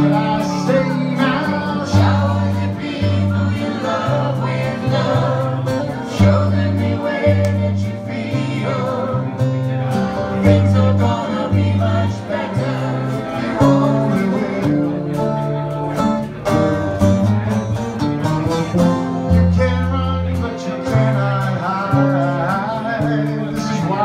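Live acoustic band playing a song with a group singing along: strummed acoustic guitar over a steady stepping bass line, with several voices singing together into the microphones.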